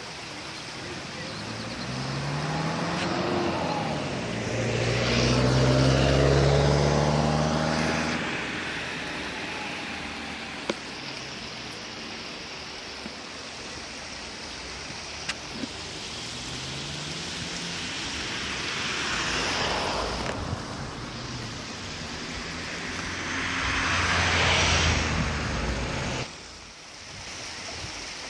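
Twin-engine propeller aircraft passing close by, its propeller and engine tones dropping in pitch as it goes past, loudest about six seconds in. The noise swells again twice later and cuts off abruptly near the end.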